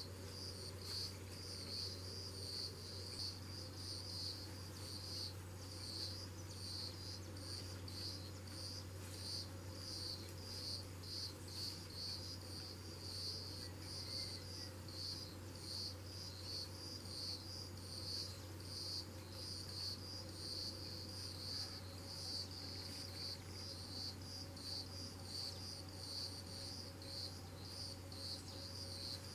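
Chorus of insects calling steadily, a high-pitched, rhythmically pulsing trill, with a steady low hum underneath.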